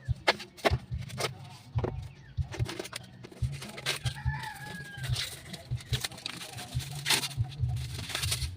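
A rooster crows once, about four seconds in, over a run of sharp clicks and taps from hand tools on metal engine parts.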